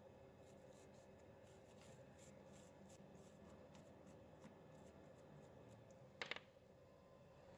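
Near silence: faint room tone with a steady low hum and faint ticks, broken about six seconds in by one brief scratchy noise.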